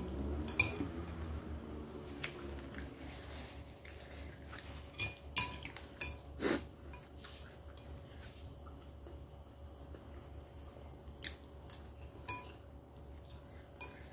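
Chopsticks and a spoon clinking against a bowl while noodles are eaten: about ten short, scattered clinks, the loudest about five to six and a half seconds in.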